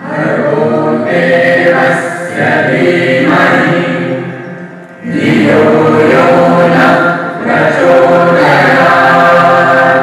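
Devotional vocal music: a choir of voices singing a chant-like hymn in long held phrases, with two short breaks between phrases.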